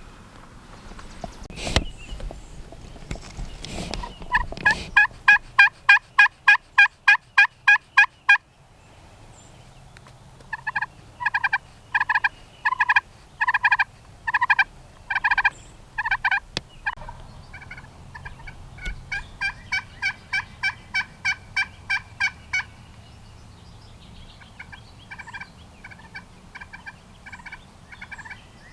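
Turkey yelping: several runs of evenly spaced, loud call notes. The first run is fast, the middle run slower and louder, and a softer fast run follows.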